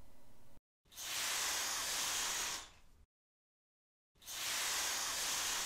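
Two swishing whooshes, bursts of bright hiss each about two seconds long, separated by a second of dead silence. It is an edited-in sound effect accompanying a stage-curtain transition on the end screen.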